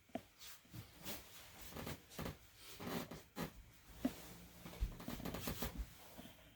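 Soft, irregular rustling with a few light knocks, the sound of someone moving and handling things in a small room.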